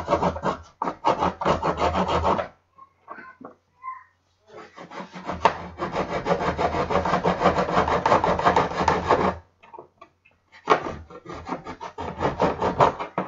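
Serrated knife sawing back and forth across a square wooden dowel with quick scraping strokes, scoring a deep cut line on each side so the dowel can be snapped. The sawing comes in three runs, pausing briefly about 2.5 s in and again about 9.5 s in.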